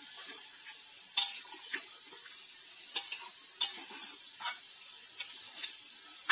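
A spatula stirring thick kosha chicken curry with potatoes in a metal pot, with intermittent scrapes and clicks against the pot. A steady sizzle comes from the simmering gravy underneath.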